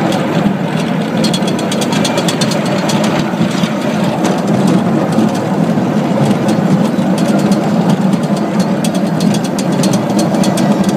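Small electric kiddie-ride train running along its narrow track, a steady rumble of wheels on rail with stretches of rapid rattling clicks.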